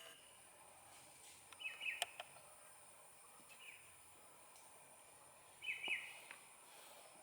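Baby squirrel chirping, calling for its mother: two short bursts of quick, falling, high chirps, about one and a half seconds in and again near six seconds.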